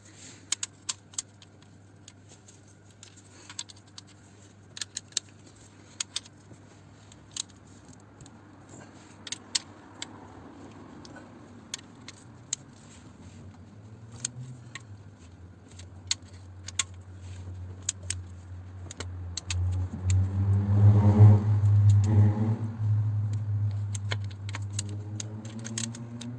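Scattered light metallic clicks and clinks of a spanner and ratchet on engine bolts as they are tightened. From about two-thirds of the way in, a louder low hum swells for a few seconds and then eases off.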